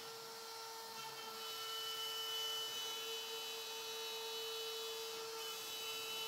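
Router motor on a small benchtop CNC machine running with a steady whine as its quarter-inch straight bit cuts through quarter-inch cherry plywood.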